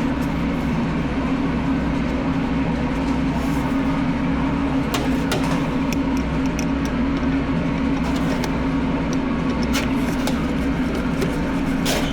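Steady machine hum with a constant low drone, broken by a few sharp clicks.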